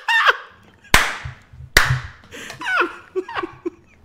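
Men laughing in short bursts, with two sharp hand claps about a second in, less than a second apart.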